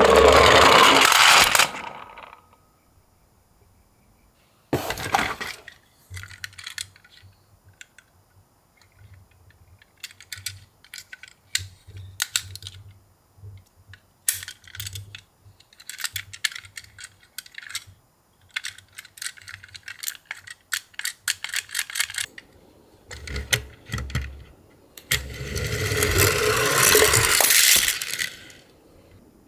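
Die-cast toy minicars clattering against each other and a box: a loud jumbled clatter at the start and another near the end, with a knock and scattered small clicks and rattles in between.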